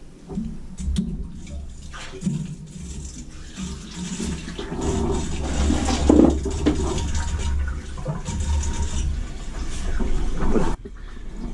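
Water and air rushing and gurgling through the copper piping of a hot-water boiler system and out a purge hose as a heating zone is purged of air. The flow grows louder about halfway through and drops off sharply near the end.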